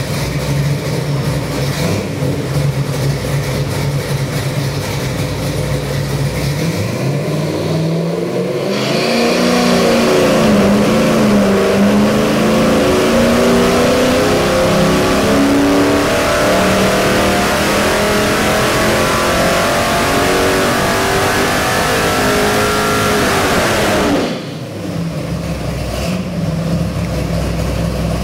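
383 small-block Chevy stroker V8 with a hydraulic roller cam and Holley carburetor running on an engine dyno. It idles, then about eight seconds in it goes into a full-power dyno pull, its pitch climbing steadily for about fifteen seconds. Near the end the throttle is shut and it drops quickly back to idle.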